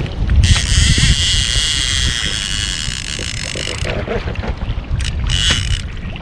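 Wind buffeting the microphone on a fishing kayak at sea, with water hissing and rushing along the hull, loudest for the first few seconds and again briefly near the end.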